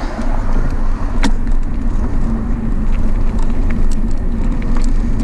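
Steady wind rush on the camera microphone and tyre noise on asphalt as a bicycle rolls downhill at speed, with a faint steady hum and a sharp click about a second in.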